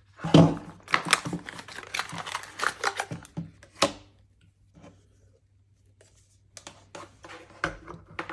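Unboxing handling noise: a knock just after the start, then rustling and clicking of packaging and small plastic parts for about four seconds. After a short pause, the rustling and clicking comes back near the end.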